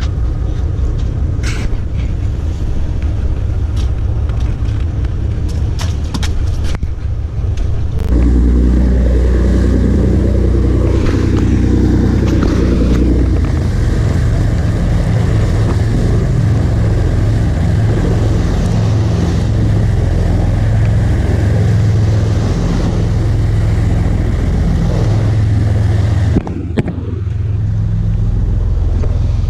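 Sportfishing boat's engines running under way with a steady low rumble and a few short knocks; about eight seconds in the rumble becomes louder and deeper, with a brief dip near the end.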